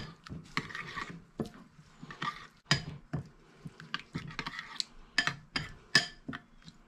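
Metal spoon stirring a liquid marinade with chopped herbs in a ceramic bowl, with irregular clinks and scrapes against the bowl.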